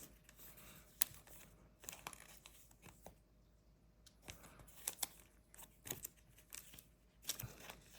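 Trading-card pack wrapper crinkling and tearing, with scattered light clicks and taps of cards being handled.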